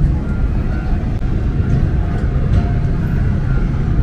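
Boat engine running: a steady low rumble with a faint high whine over it.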